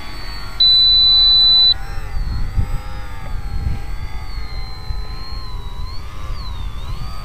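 RC Zivko Edge model aerobatic plane's motor and propeller running at full power, a whine that bends up and down in pitch as the plane manoeuvres low over the field. A loud steady high beep cuts in for about a second near the start.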